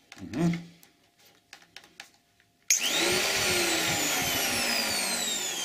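Bosch GHO 26-82 electric hand planer switched on about two-thirds of the way in. Its motor and cutter block start suddenly and run free and steadily with a whining hum, not cutting any wood.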